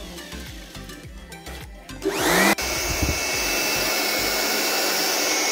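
Handheld electric air blower fanning a charcoal grill. Its motor runs low at first, spins up with a rising whine about two seconds in, then runs steadily with a high whine.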